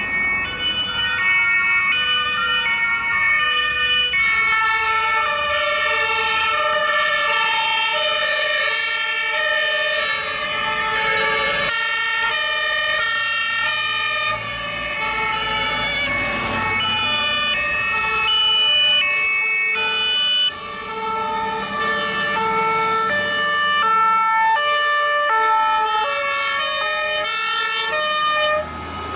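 Several German two-tone emergency-vehicle sirens (Martinhorns) sounding at once from a passing convoy, each alternating between its two notes, out of step and at different pitches, so the tones overlap in a shifting jumble.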